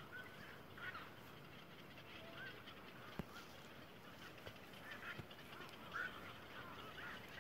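Faint, scattered short animal calls from the waterside, each rising and falling, more of them near the end, over a low hiss, with a sharp click about three seconds in.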